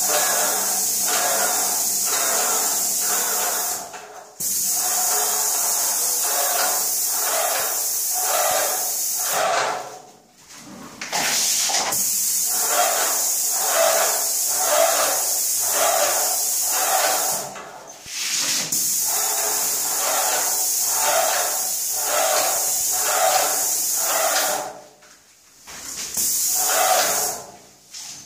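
Graco airless paint sprayer gun spraying paint onto a wall: a steady hiss with a regular pulsing beneath it, about one and a half pulses a second. The spray stops briefly four times and starts again.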